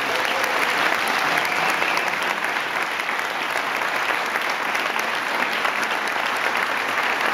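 A roomful of audience applauding steadily at the end of a tango dance.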